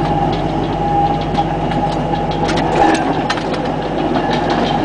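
1926 Whitcomb storage battery mine locomotive rolling along narrow-gauge track, its electric traction motor and gearing giving a steady hum and whine at constant pitch. Steel wheels on the rails add many short clicks and rattles.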